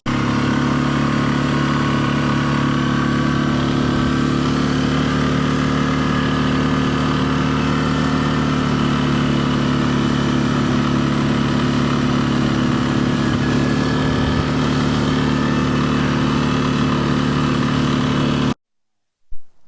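Small engine running at a steady speed, an even, unchanging drone that stops abruptly near the end.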